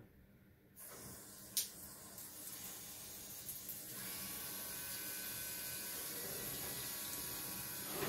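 Water spray hissing from a handheld propeller showerhead as the water comes on: it starts about a second in, builds, and runs steady from about four seconds in with a faint steady tone in it. A single click about a second and a half in.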